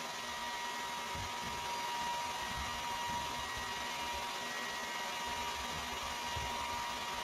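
Hand-held hair dryer running steadily: an even rushing hiss of blown air with a thin, steady whine from its motor.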